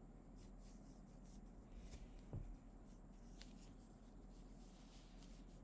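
Near silence: faint steady room hum with a few soft rustles and one soft low thump about two seconds in.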